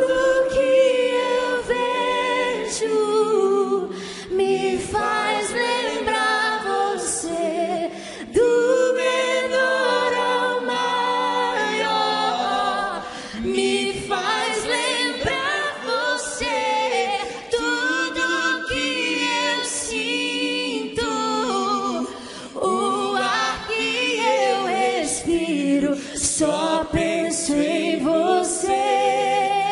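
A woman singing a worship song a cappella in long, wavering held notes, with many voices singing along like a choir.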